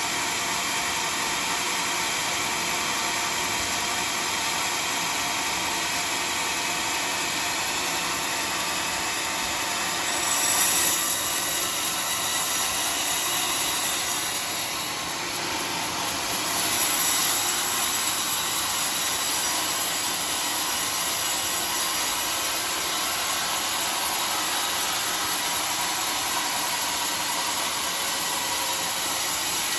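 Homemade band sawmill running and sawing through a teak log, a steady high-pitched cutting noise that swells briefly twice, about ten seconds in and again a few seconds later.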